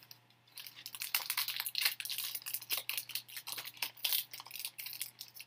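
2019 Contenders trading-card packs and cards being handled: dense, rapid crinkling and rustling of pack wrappers and card stock.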